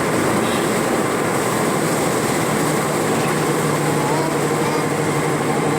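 Steady road and engine noise of a moving car, heard from inside the cabin, with a low engine hum that grows steadier about three and a half seconds in.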